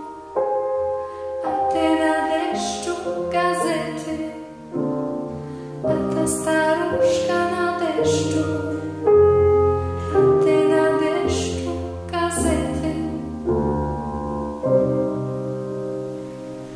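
A young woman singing a ballad into a handheld microphone over piano accompaniment, the song fading out near the end.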